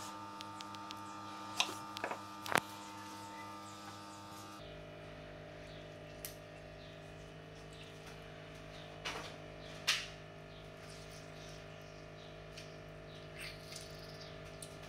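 Steady electrical hum. Over it, a knife taps on a wooden chopping board a few times while cutting a lemon, and further in a hand squeezes lemon over a glass bowl of diced raw fish, with a couple of short sharp sounds near the middle.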